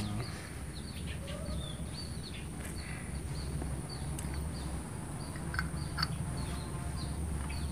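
Birds chirping over and over in short calls, over a steady low hum. A couple of faint clicks about five and a half and six seconds in come from small brush-cutter carburetor parts being handled.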